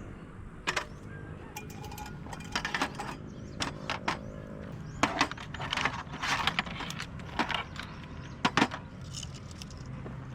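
Irregular clicks, knocks and rustles of objects being handled, the loudest about halfway through and again near the end.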